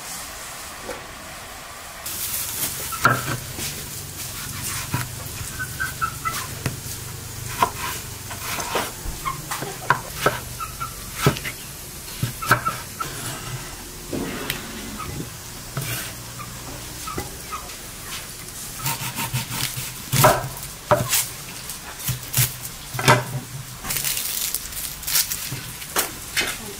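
Chef's knife chopping vegetables on a thick wooden cutting board: irregular sharp knocks of the blade against the wood, starting about two seconds in.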